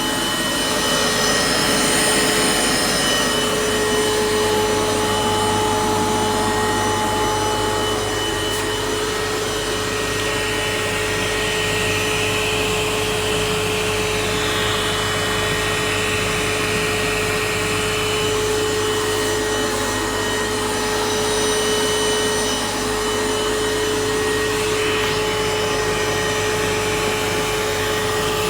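Vacuum cleaner running steadily: a constant rushing noise with a steady whine on top.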